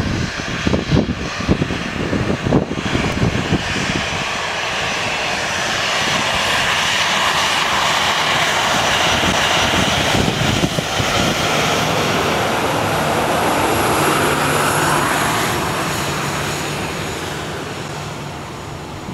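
Boeing 737-900 CFM56-7B jet engines at take-off thrust as the airliner rolls past. The noise swells over several seconds, with a whine that falls in pitch as it passes, then fades as it lifts off. Low gusts of wind on the microphone come in the first few seconds.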